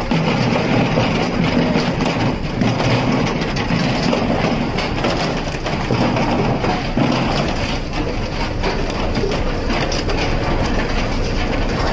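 Frozen tuna clattering and knocking as they slide down a metal chute onto a running conveyor belt, a continuous rattle of hard fish on metal over the steady rumble of deck machinery.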